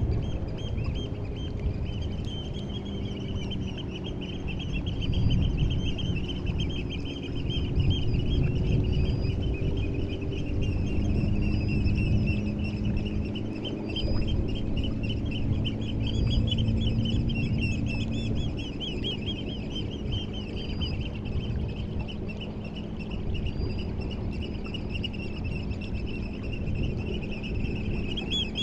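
A flock of seabirds calling without a break, a dense chatter of rapid high notes with fainter higher calls every couple of seconds. Underneath is a low rumble of the incoming tide that swells and fades every few seconds, and a faint steady hum.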